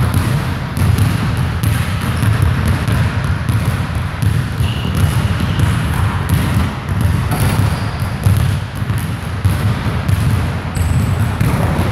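Several basketballs bouncing irregularly on a hardwood gym floor as players dribble and shoot.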